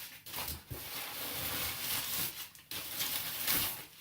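Rustling and rubbing of paper packing and cardboard as hands search through a delivery box, coming and going unevenly.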